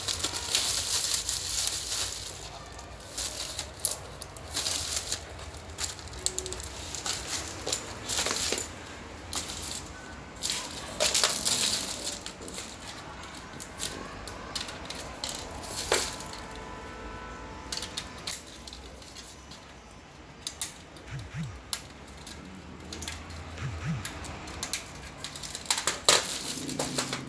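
Plastic packaging crinkling and rustling in short bursts, with scattered light clicks and knocks, as cables and small parts of a modem installation kit are unwrapped. The crinkling is densest in the first couple of seconds.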